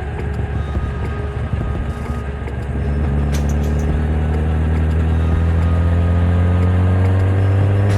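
2013 Kawasaki ZX-10R's inline-four engine running under throttle. It gets louder about three seconds in, and its pitch then climbs slowly as the revs rise.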